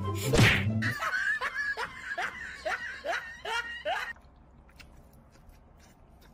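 Laughter: a run of about seven short syllables, each falling in pitch, after music that stops about a second in. From about four seconds in it is much quieter, with a few faint clicks.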